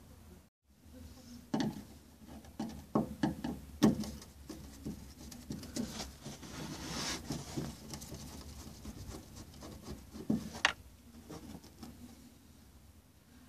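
Scattered light clicks and scrapes of an 8 mm wrench working loose the small bolts around the fuel pump module's flange, metal on metal.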